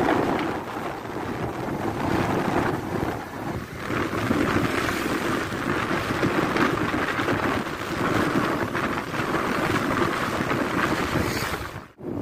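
Wind buffeting the microphone of a moving motorcycle, with engine and road noise underneath. The sound drops out briefly near the end.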